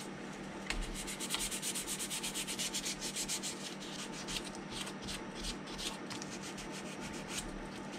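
Sandpaper rubbed back and forth in quick, even strokes over a plastic model kit's hull, smoothing down filled and puttied seams.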